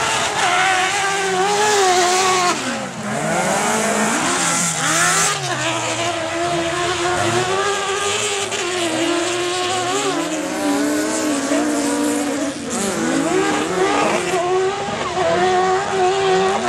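Several autocross race cars at racing speed on a dirt track, their engines revving and overlapping, the pitch repeatedly climbing and dropping as they accelerate and back off through the corners.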